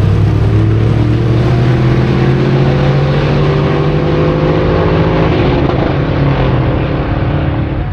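Two pickup truck V8s at full throttle in a drag race launch, pulling away down the strip. The engine note climbs steadily in pitch, then grows fainter as the trucks run off into the distance.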